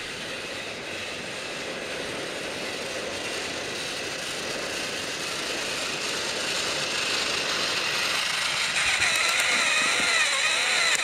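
Battery-powered Trackmaster toy train motors whirring as the plastic trains run along plastic track, growing louder as the engine nears. About nine seconds in, a wavering whine comes in, rising and falling in pitch about twice a second.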